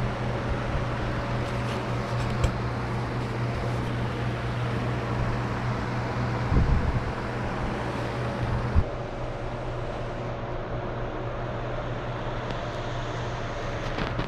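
Steady mechanical hum from a small electric motor, with a few knocks about halfway through; the low part of the hum drops away soon after.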